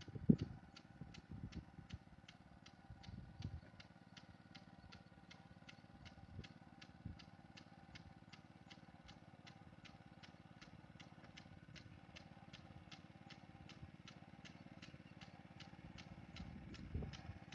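Rice transplanter's small engine running faintly, with a regular sharp ticking about two to three times a second and a few low thumps near the start and end.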